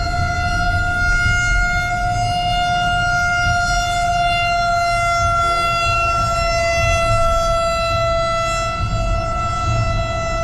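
Outdoor tornado warning siren sounding one long steady tone that sags slightly in pitch, over a constant low rumble.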